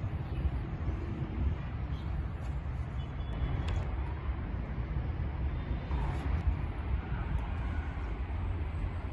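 Outdoor ambience on a walk: a steady low rumble with a few faint light clicks about three and a half and six seconds in.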